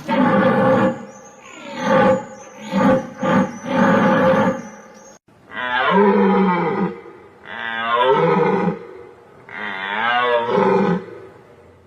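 White-tailed deer calls played as a sound effect: a loud, drawn-out pulsing call over the first five seconds, then three separate calls with wavering pitch, each about a second and a half long.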